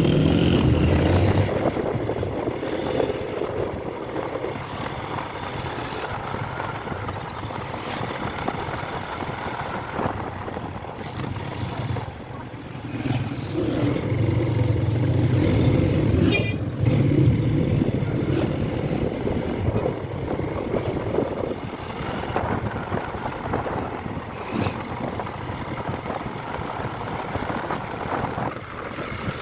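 Honda CB150 motorcycle engine running steadily while riding, with louder stretches in places.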